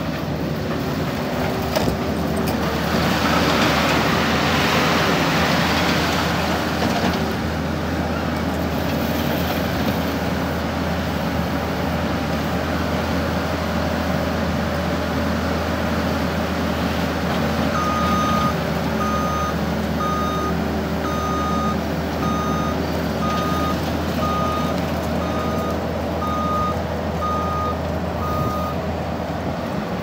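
Case TV380 compact track loader's diesel engine running steadily as the machine works, swelling louder and rougher for a few seconds near the start. In the second half its backup alarm gives a steady run of beeps for about ten seconds while the loader reverses.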